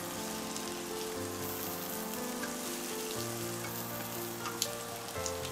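Sliced onions sizzling in hot oil in a frying pan as they are stirred with chopsticks, a steady crackling hiss with a couple of light ticks near the end, over soft background music.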